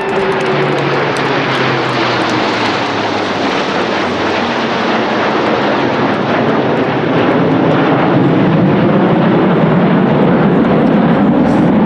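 Aircraft engine noise from airshow aircraft in flight: a steady rushing sound that grows louder over the last few seconds as the aircraft come closer.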